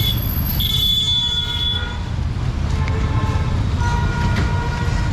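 Busy street traffic with a steady low rumble and a shrill high squeal of about a second near the start, followed by fainter higher-pitched tones.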